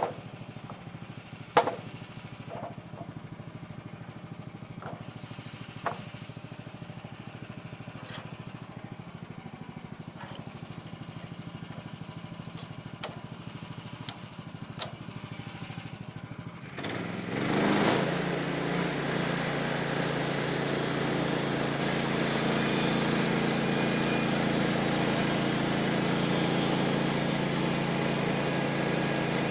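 An engine runs quietly and steadily, with a few sharp knocks. About two-thirds of the way through, a much louder engine comes in suddenly and then runs steadily.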